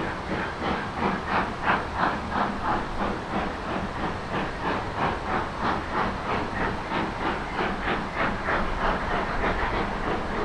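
Steam locomotive working under steam, its exhaust chuffing in a steady, even rhythm of about three beats a second.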